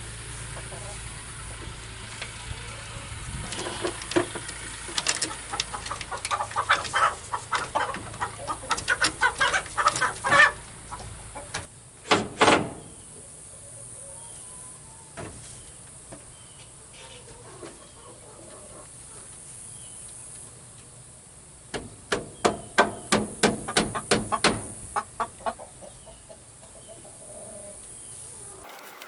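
Chickens clucking in two runs of rapid clucks that build in loudness, with one louder squawk about twelve seconds in.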